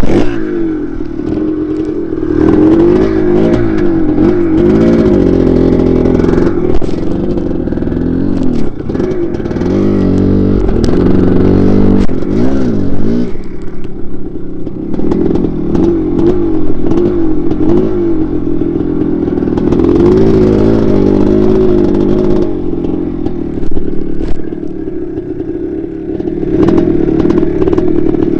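1982 Maico 490 two-stroke single-cylinder dirt bike engine revving hard under load on a muddy, slippery climb, its pitch rising and falling again and again as the throttle is worked.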